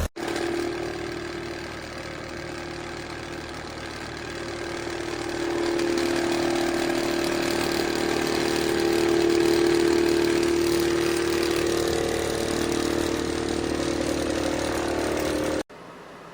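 Small ceramic fan heater running: a steady whir with a strong hum from its fan motor. It grows louder about a third of the way in and eases off again later. The sound starts and stops abruptly.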